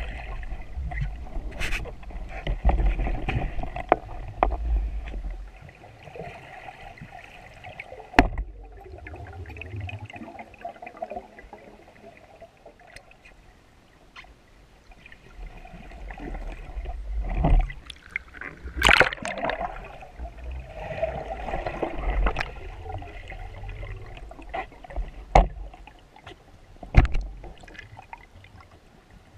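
Water sloshing and gurgling around an underwater camera housing while a freediver swims and dives, heavy and rumbling for the first few seconds, then in uneven swells. Sharp clicks and knocks come throughout.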